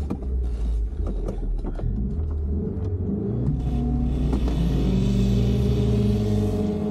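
Mercedes-Benz W123's engine pulling under load in low range up a steep dirt slope. A few knocks come in the first two seconds, then the engine runs steadily and gets a little louder toward the end.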